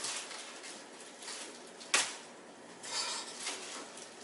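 Fresh broccoli being broken into florets by hand: one sharp snap of a stalk about two seconds in, then a rustle of the florets being handled.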